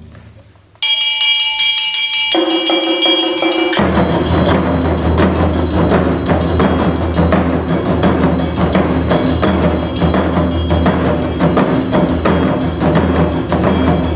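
Modern-arranged instrumental music built on taiko drums, without shouted calls. After a brief silence a few sustained ringing tones play, then about four seconds in the drums and a steady low bass come in with dense, rhythmic strikes.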